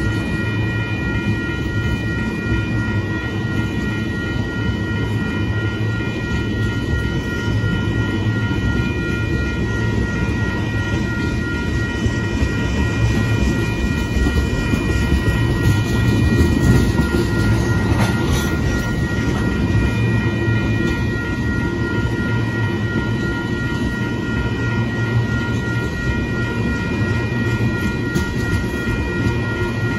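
Freight train of tank cars rolling steadily past a grade crossing: a continuous rumble of wheels on rail, with steady high-pitched tones over it.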